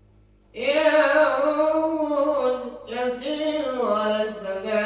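Unaccompanied Islamic devotional chant (tawshih) by a male voice, drawing out a long melismatic line that wavers and glides in pitch. The line comes in about half a second in after a brief breath pause.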